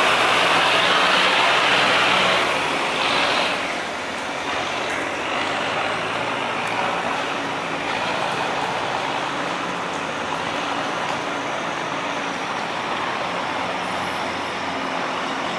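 Diesel engines of river cargo barges running with a steady low hum under a broad hiss. The hiss is loudest for the first two or three seconds, then drops.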